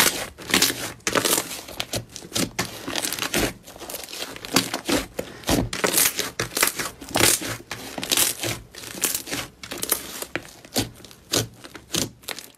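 Hands kneading and pressing a large mass of thick pink slime: a rapid, irregular run of sticky crackles and pops. It cuts off suddenly at the end.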